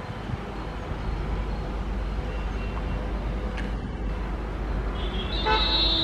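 A pair of WDG-3A diesel locomotives with ALCO 251 engines approaching under power, with a steady low rumble. A little after five seconds in, a brief high-pitched tone sounds over the rumble.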